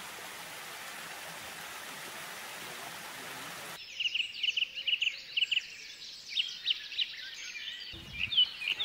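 Steady rush of water from a small waterfall, which cuts off suddenly about four seconds in and gives way to many birds chirping and singing in quick, overlapping high notes.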